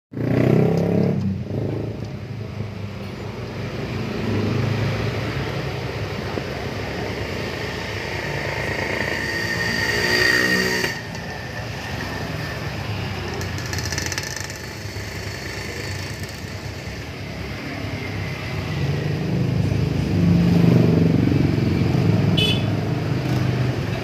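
Motor vehicle engines running, with a rising engine note that stops abruptly about eleven seconds in and swells again near the end.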